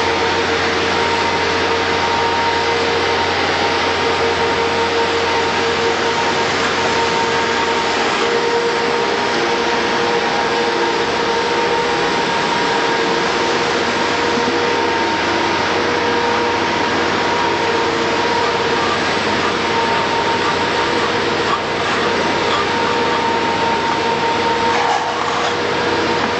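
Steady machine noise with a constant whine, like an industrial vacuum or extraction unit, running without a break.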